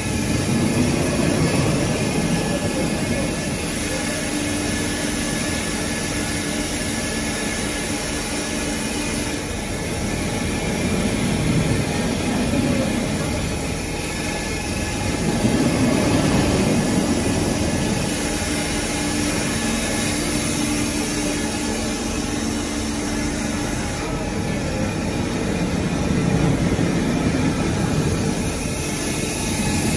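Industrial foam-block cutting machine running: a steady mechanical drone with a low hum that comes and goes twice.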